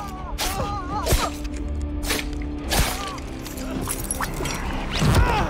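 Horror film soundtrack: a low droning score under a series of sharp hits and breaking glass, with a voice crying out near the start and again about five seconds in.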